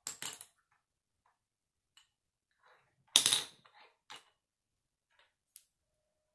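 Plastic LEGO bricks clicking and clattering as they are handled, set down on a wooden table and pressed together: a few short clicks at the start, the loudest clatter about three seconds in, then scattered lighter ticks.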